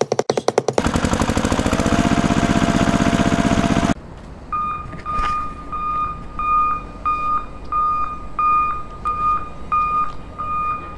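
A vehicle engine running with a quick pulsing rhythm and a rising pitch, which cuts off suddenly about four seconds in. A reversing beeper then sounds in steady, even beeps about twice a second.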